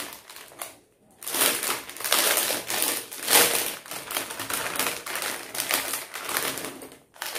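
A jewellery set being handled, making a dense crackling rustle with many quick clicks. It starts about a second in and stops just before the end.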